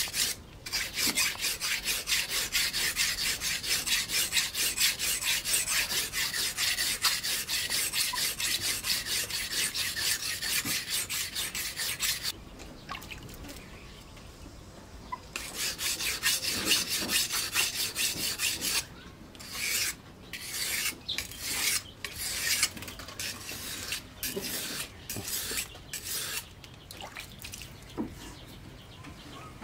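Steel knife blade, forged from a disc brake rotor, being stroked rapidly back and forth on a whetstone to sharpen its edge. The scraping runs steadily for about twelve seconds, stops for about three, then comes back in shorter runs of strokes with gaps between them.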